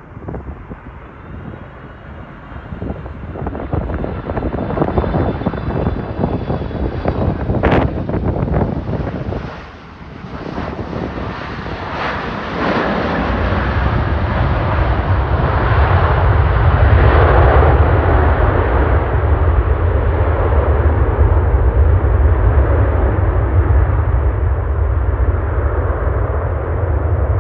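Jet airliner's engines close by: a turbine whine rising in pitch over the first several seconds, then from about halfway through a loud, deep, steady rumble as the aircraft passes.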